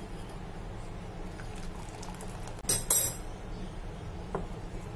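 Thick mango custard pouring from a steel pot into a ceramic bowl, with two sharp clinks about three seconds in, the pot against the bowl, and a lighter knock a little later.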